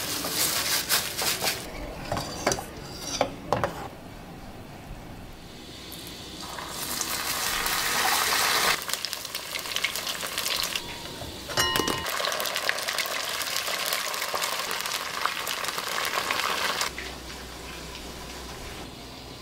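Vegetable slices frying in oil in a small cast-iron pan, sizzling in stretches, with a spatula stirring and scraping the pan; the sizzle cuts off suddenly near the end. At the start, short knocks and rustling as food is mashed by hand in a bowl.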